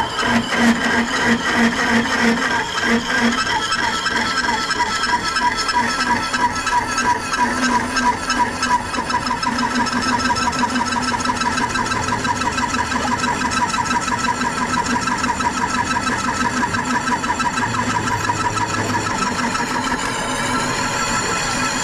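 Horizontal milling machine running, its disc-shaped milling cutter cutting steel under a stream of cutting oil: a steady whine with a fast warble. Near the end the pitch rises briefly.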